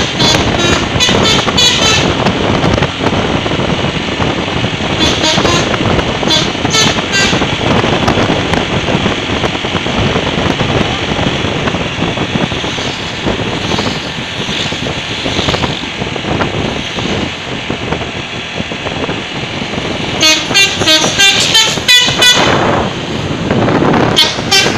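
Telolet horn of an Agam Tungga Jaya super-high-deck bus sounding its quick multi-tone tune in bursts: at the start, from about five to seven seconds in, and again near the end. Steady vehicle noise fills the gaps between the bursts.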